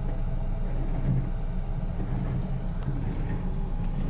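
Car engine running, heard from inside the cabin as a steady low hum.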